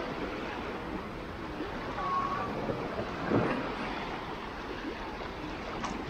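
Small waves lapping and washing up onto a sandy shore, with a louder wash of a wave about three seconds in.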